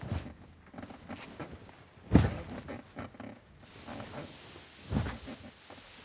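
A few soft, heavy thuds, three of them, about two to three seconds apart, with lighter clatter and rustling between.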